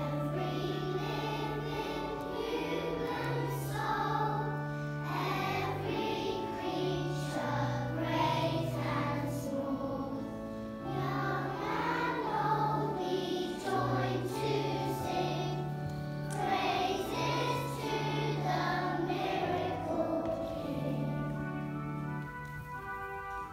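A group of young children singing a song together in unison over an instrumental accompaniment with a steady bass line.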